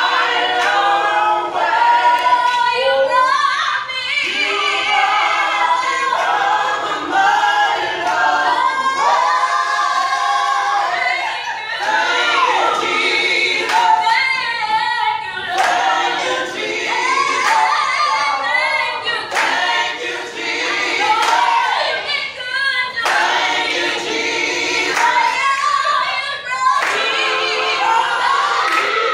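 Small gospel vocal group singing a cappella, several voices together in harmony.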